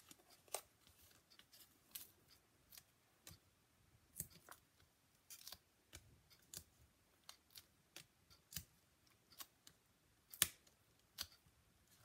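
Faint, irregular clicks and crinkles of paper handling: foam adhesive dimensionals being peeled off their backing sheet and pressed onto die-cut cardstock.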